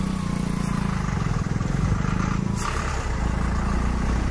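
Steady low engine rumble, like a vehicle idling, with a brief hiss about two and a half seconds in.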